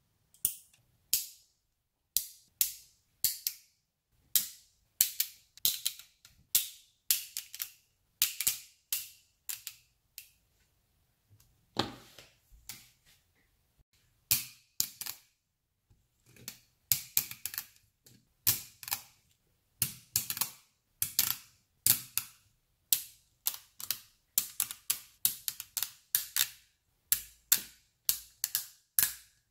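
Metal magnet balls snapping together with sharp clicks as balls and rows are added one at a time, often in quick doubles or small clusters, about one or two a second, with a couple of brief pauses.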